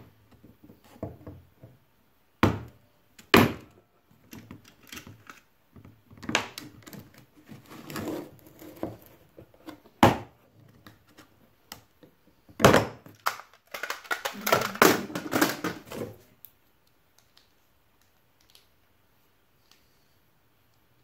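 Hand impact driver being struck to loosen a Phillips screw in a lawn tractor's plastic footrest: sharp metal knocks, a few seconds apart, then a few seconds of rapid clattering about two thirds of the way through.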